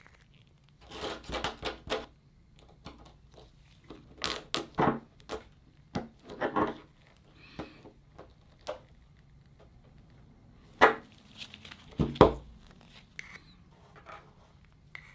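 Handling noises from pliers, a small plastic mixing cup and a wooden stir stick while plugs are set into a surfboard blank with epoxy: scattered taps, scrapes and rustles, with two sharp knocks about a second apart near the end.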